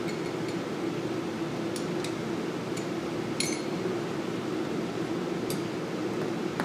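Several light metallic clinks of a wrench against the steel nozzle line and electrode assembly of a Beckett oil burner during a nozzle change, the loudest about three and a half seconds in, over a steady low hum.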